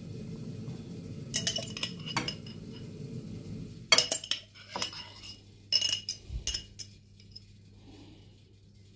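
Metal fork clinking against a glass jar of green olives as olives are fished out, then against the plate: several sharp clinks in short clusters.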